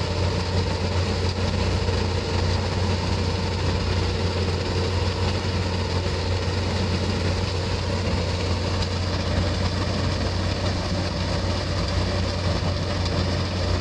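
A steady, unchanging low mechanical hum with a constant hiss over it.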